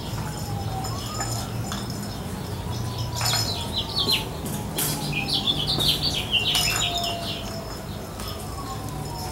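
Labrador puppies playing in and against a wire exercise pen: scattered clicks and rattles, with a quick run of high chirping squeaks in the middle.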